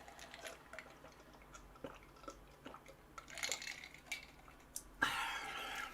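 Close-miked chewing, with small wet mouth clicks and light crunches. A louder stretch comes about five seconds in.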